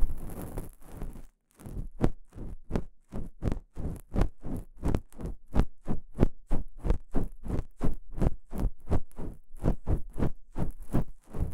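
Ear pick scraping inside the ear of a binaural dummy-head microphone in quick, regular strokes, about three a second. It is a gentle scratching ear-cleaning sound, close up in the ear.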